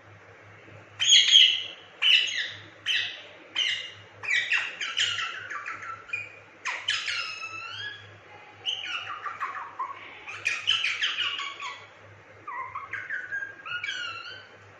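Indian ringneck parakeet calling: a quick run of harsh chirps and squawks starting about a second in, many of them sliding down in pitch.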